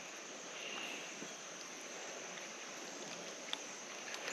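Faint, steady hiss of a running creek. A brief high whistle comes about half a second in, and a single light click comes near the end.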